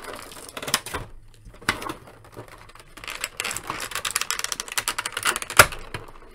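Clear plastic packaging crinkling and crackling as an action figure and its small bagged parts are worked out of a blister tray, with many small clicks. A sharp, louder click comes about five and a half seconds in.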